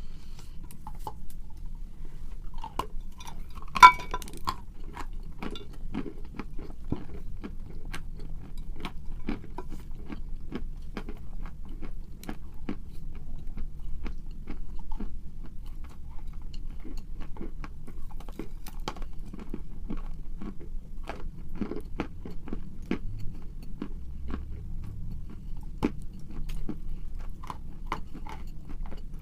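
Close-miked crunching of edible chalk: bites snapping pieces off and steady crisp chewing, many irregular crunches a second. About four seconds in there is one much louder, sharp snap with a short ring.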